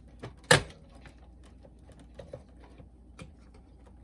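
Handling noises from a boombox being taken apart: one sharp knock about half a second in, then a few faint clicks and taps.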